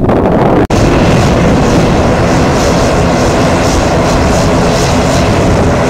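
Airplane engines very loud and steady at close range, a dense rush of noise with faint steady tones, broken by a brief dropout under a second in.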